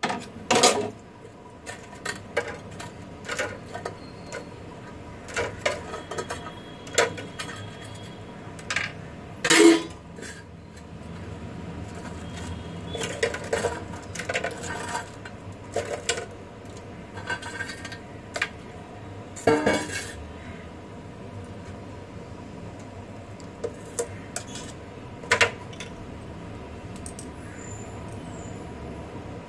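Stainless steel bowls, a steel spoon and a ceramic plate clinking and knocking at irregular intervals as food is served, with the two loudest knocks about ten and twenty seconds in. A faint steady hum runs underneath.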